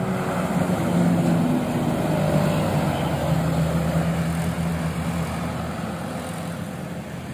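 Passing road traffic: a medium diesel cargo truck's engine running steadily as it drives close by, then a minibus and a car going past. The sound fades over the last couple of seconds.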